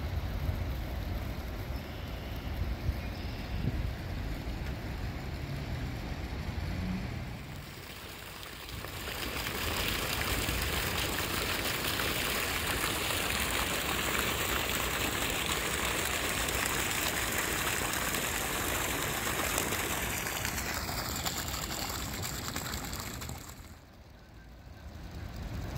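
A low rumble, then from about nine seconds in a steady rushing hiss like flowing water, with a faint tone gliding downward shortly before it fades.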